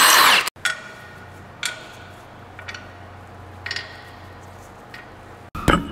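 A loud rush of noise cuts off about half a second in. Then come faint metallic clinks of tools, about one a second, over a low steady hum, and a short loud noise near the end.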